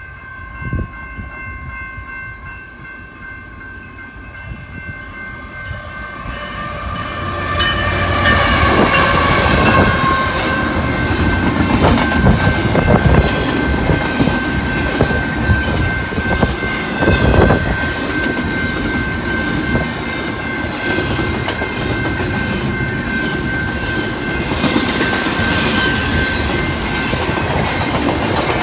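A BNSF GE ET44C4 freight locomotive sounds its horn as it approaches. The horn chord drops in pitch as the locomotive passes, about nine seconds in, then double-stack container cars roll by with a steady rumble and wheel clatter over the rail joints, while a single high steady tone rings on.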